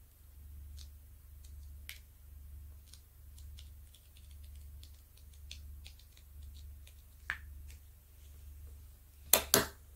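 Faint, scattered small clicks of a diamond-painting multi-placer wheel pen rolling resin drills onto the adhesive canvas. Two louder, sharper clicks come close together near the end.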